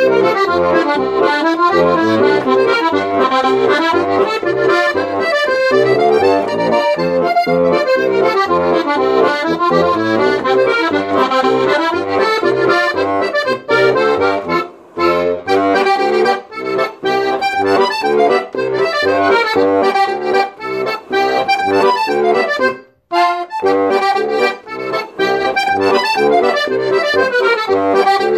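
Melodija Slovenka button box (diatonic button accordion) playing a lively traditional song: a melody over a steady oom-pah bass, with short pauses about 15 and 23 seconds in.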